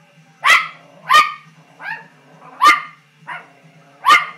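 Apricot poodle barking: six short, sharp barks at a steady pace of a little under one a second, four loud and two softer.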